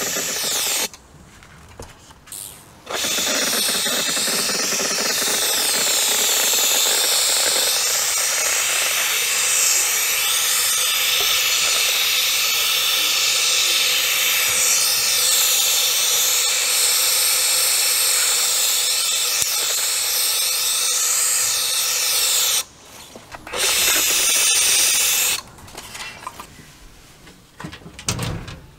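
Paint spraying onto a cast-iron forge blower housing: a loud, steady hiss of spray that stops briefly about a second in and again for a couple of seconds late on. Near the end it gives way to quieter handling knocks.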